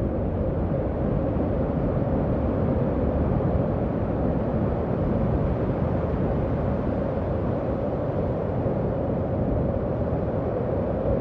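Howling wind, a horror-style sound effect: a steady rushing noise with one hollow howling tone held at the same pitch throughout, never rising or dying away.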